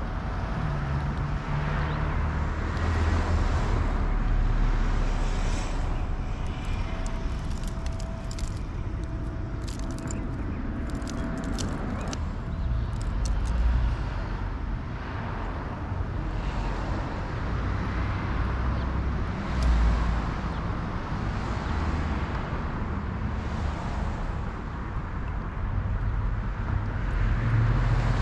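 Steady low rumble of distant road traffic in outdoor ambience. A cluster of short high ticks comes between about six and thirteen seconds in.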